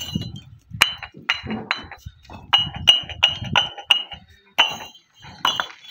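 Fired clay bricks struck against each other, a dozen or so sharp clinks, each with a clear high ring, coming about three a second in the middle of the run. The clear ring is the mark of hard, well-fired bricks.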